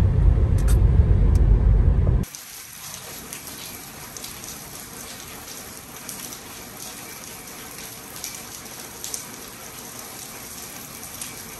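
Low rumble of a car driving, heard from inside the cabin, cut off sharply about two seconds in. It gives way to a steady hiss of rain with a patter of many small drops.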